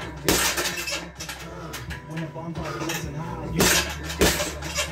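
Boxing gloves punching a hanging heavy bag: a hard thud just after the start, lighter hits in between, then two hard punches about half a second apart near the end, with some metallic clinking from the bag's hanging hardware.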